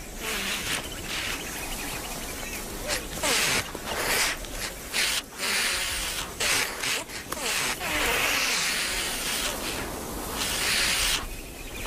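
Several ostriches hissing and rustling their spread wings in an excited huddle: a run of loud, rushing hisses, each under a second to about a second long, with short breaks between them.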